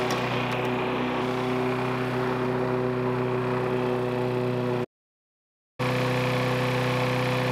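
Single-cylinder engine of a walk-behind lawn mower running steadily on paint thinner (mineral spirits), running great. The sound cuts out to silence for about a second, about five seconds in.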